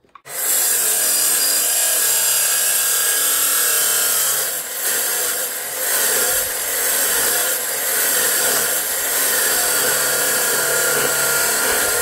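Abrasive chop saw cutting through perforated square steel tubing, its wheel running loud and steady under load. The sound starts suddenly right at the beginning and dips slightly a few times as the cut goes on.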